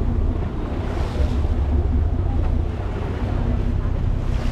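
Wind buffeting the microphone on a moving boat, over the steady drone of its engine and the wash of sea water.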